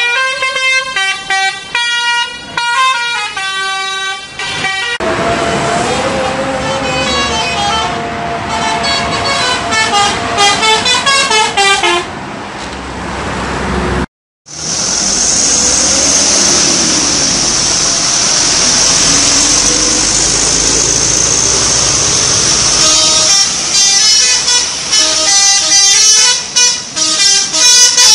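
Telolet bus horn, a set of tuned air horns, playing quick runs of changing notes as a melody. After a short break about halfway through, a steady high hiss runs for several seconds before the note runs come back near the end.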